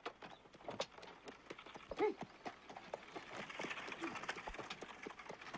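Horse's hooves clip-clopping at a walk in an irregular run of knocks, with one short pitched call about two seconds in.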